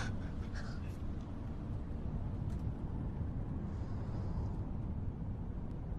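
Steady low rumble of a car cabin while driving, with a couple of faint short sounds in the first second.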